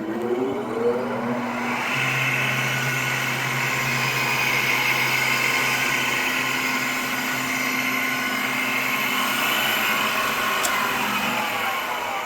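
Cincinnati No. 2 universal tool and cutter grinder's motor and flat-belt-driven spindle running, with a rising whine as it finishes coming up to speed in the first second or so. It then runs steadily, is switched off about ten seconds in, and winds down with a falling whine.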